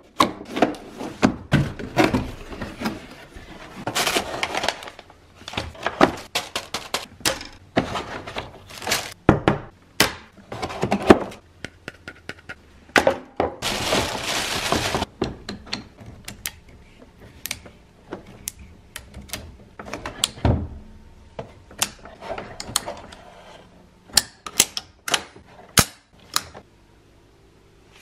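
Unboxing handling noise: a cardboard box lid and flaps opened, a plastic bag rustled and pulled off an airsoft rifle, and knocks and clicks as the rifle is lifted out of its moulded pulp tray.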